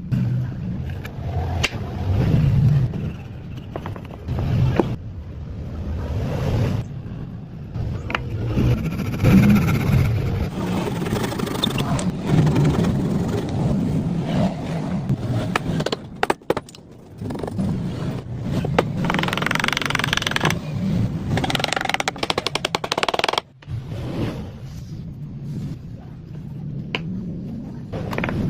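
Wood being worked with hand tools: scraping and rasping with a few sharp knocks, in a series of short clips that change abruptly.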